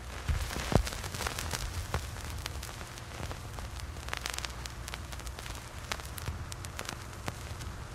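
Irregular crackling: scattered sharp clicks over a faint steady hiss and a low hum.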